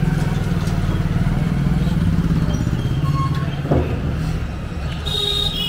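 Street traffic with a motor vehicle engine, likely a motorcycle, running close by. A short thump a little past the middle, and a brief high tone near the end.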